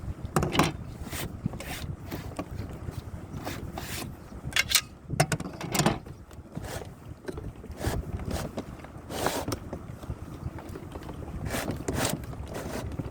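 Folding plastic canoe being taken apart: irregular scrapes and knocks of the hull panels and fittings being handled, over low wind rumble on the microphone.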